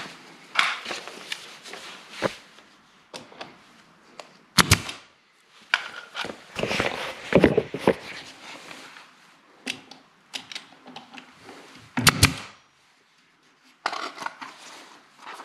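Brad nailer firing nails into baseboard trim: several sharp shots, the loudest a close pair about four and a half seconds in and another about twelve seconds in, with quieter knocks and rubbing between.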